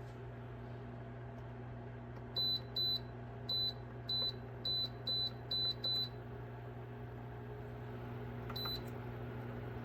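Senville ceramic space heater's control beeper sounding as buttons are pressed: eight short high beeps in quick succession a couple of seconds in, then one more near the end, over a steady low hum.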